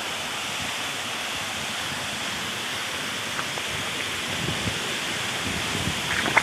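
Ngardmau waterfall rushing: a steady, even roar of falling water, with a few soft low thumps near the end.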